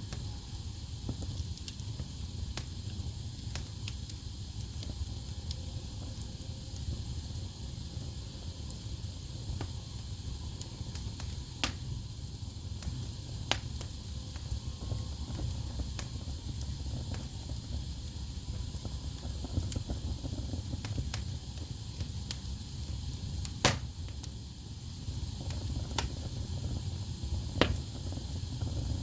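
Wood fire burning in a fireplace: a steady low rumble of flames with scattered sharp crackles and pops, the loudest about three quarters of the way through.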